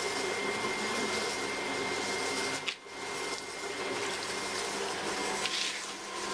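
Potter's wheel running steadily with a continuous motor whir while wet clay turns on it, dipping briefly a little under three seconds in.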